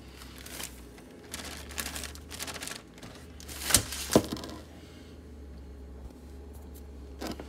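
Dry baking mix shaken from its cardboard box into a glass measuring cup with soft rustling, then two sharp knocks of the glass cup against the countertop about four seconds in, and a lighter click near the end.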